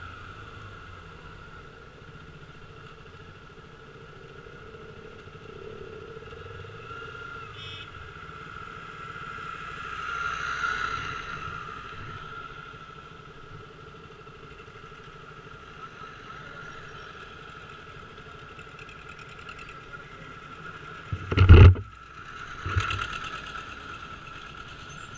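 Motorcycle engine running and road noise heard from a camera mounted on the bike while riding and slowing to a stop. A brief loud burst comes near the end, followed by a smaller one.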